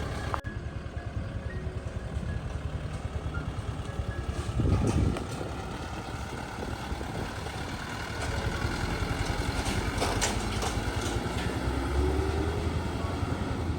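An engine running steadily with a fast low throb, with a brief louder surge about five seconds in and scattered clicks and knocks.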